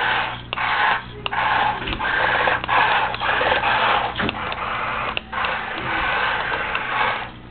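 Small 1/24 scale RC tank's electric drive motors and gearbox whirring as it is driven, in runs of one to two seconds broken by short pauses, with a few clicks.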